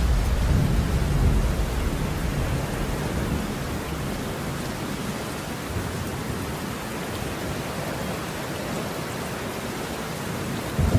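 Steady rain with a low rumble of thunder rolling away over the first couple of seconds; another thunder rumble starts right at the end.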